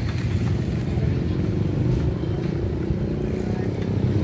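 Small motorcycle engines running and passing along a street, over a steady low rumble of traffic.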